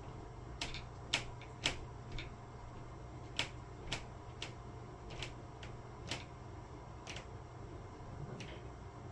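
A series of sharp, irregular clicks or knocks, about a dozen in nine seconds, over a steady low hum.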